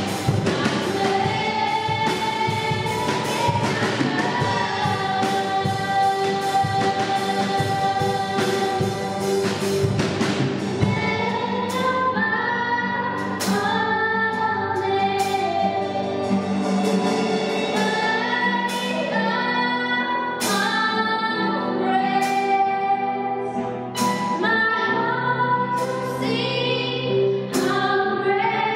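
Two women singing a worship song together into microphones over a band with drums and cymbals. The drumming is busy for the first ten seconds or so, then settles into sparser accents.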